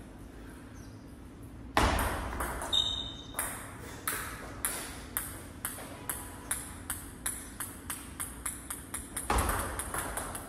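Table tennis rally: the ball clicking sharply off the paddles and the table in a quick, even rhythm of about two and a half strikes a second. It opens with a loud hit about two seconds in, and there is another louder stretch near the end.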